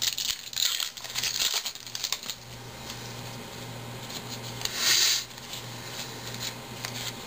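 Foil baseball card pack being handled and torn open, then the cards shuffled by hand: a run of quick crackly rustles in the first couple of seconds and a louder rustle of the wrapper about five seconds in. A steady low hum sits underneath.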